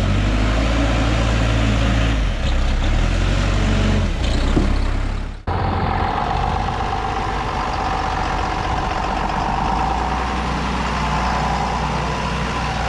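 Manitou MLT telehandler's diesel engine running under work. About five and a half seconds in, a cut to a John Deere tractor's diesel engine running steadily, with a steady whine over it.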